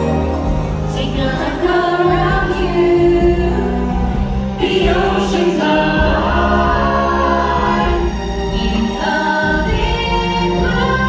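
Musical-theatre show music: a choir of voices singing a melody over an orchestral backing track, played through a theatre's sound system.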